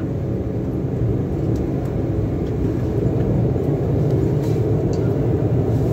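Steady low rumble in the cabin of an Embraer E190 taxiing after landing: its turbofan engines at idle and the airliner rolling along the taxiway.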